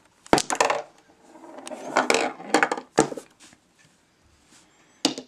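Balls on a mini pool table clacking: sharp clicks of the cue hitting the ball and balls knocking together, a cluster about a third of a second in, another around three seconds in and one just before the end.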